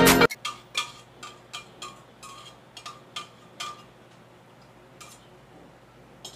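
A utensil tapping and scraping against a stainless-steel saucepan as filling is scraped out of it. It makes a run of light clicks about three a second, then two single taps near the end. Background music cuts off just as it begins.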